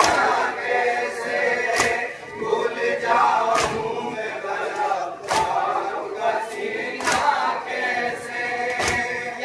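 Men chanting an Urdu noha in chorus through a microphone and loudspeaker, with sharp slaps in a steady beat about every second or two: mourners beating their chests in matam.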